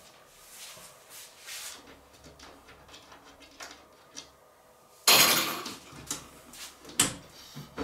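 Handling of a PC case's glass side panel as it is unscrewed and freed: faint clicks and rustles, then a loud knock and scrape about five seconds in, with a sharper knock about two seconds later and another near the end.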